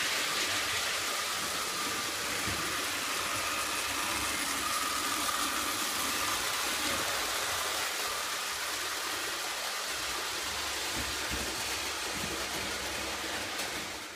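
Prewar Lionel O gauge toy trains running on a layout: a steady whirring rumble of electric motors and wheels on tinplate track, fading in at the start and out near the end.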